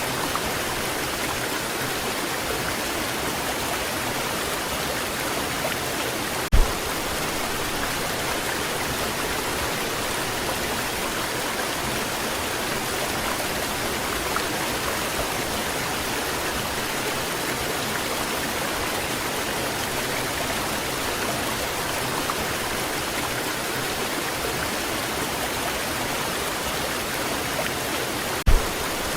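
Steady rushing of a waterfall, with two brief low thumps: one about six seconds in, one near the end.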